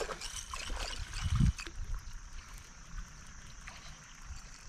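Water lapping and trickling against a small boat's hull, with a low thump about a second and a half in.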